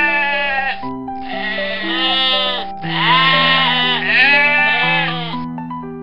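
Goat bleating repeatedly in long, wavering bleats, over background music with sustained chords; the bleating stops near the end.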